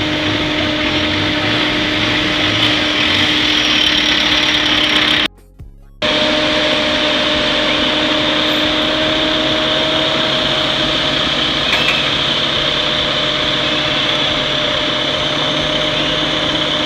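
Asphalt paving machine's engine running steadily with an even drone. The sound drops out for under a second about five seconds in, then resumes unchanged.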